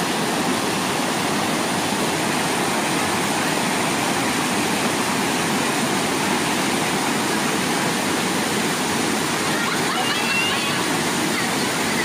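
Water of a small rocky waterfall rushing over and between boulders, a steady dense rush.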